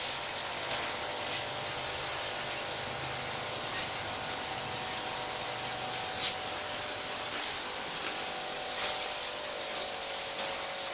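Kyzuku mini ceiling fan running: a steady motor hum under a constant high hiss, with a few faint ticks.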